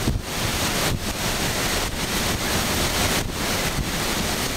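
Hurricane wind blowing hard, a steady loud rush with wind buffeting the microphone and a few brief lulls.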